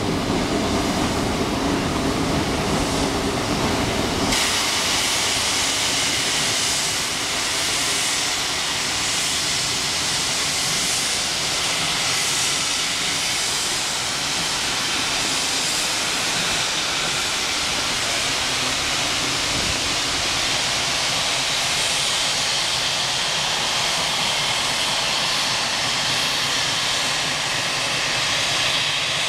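Steam logging train rolling past, its log cars and caboose rumbling over the rails. About four seconds in, a steady hiss of steam sets in abruptly and continues.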